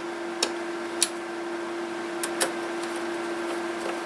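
A screwdriver working a screw into the plastic battery cover of an Aiwa boombox, giving four short sharp clicks, two of them close together near the middle, over a steady hum.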